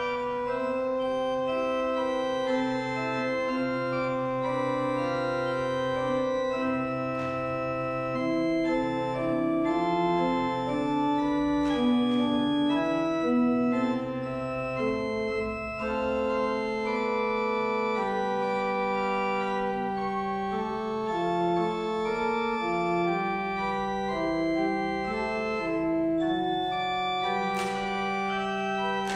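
Church organ playing the postlude: slow, sustained chords that change every second or so over a moving bass line.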